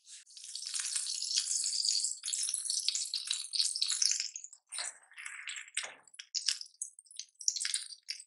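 Butter sizzling and crackling as it melts in a hot non-stick ceramic pan: a dense, even sizzle at first, thinning after about four and a half seconds into scattered crackles. About six seconds in there is a short, lower sound as a thick slice of brioche bread is laid into the melted butter.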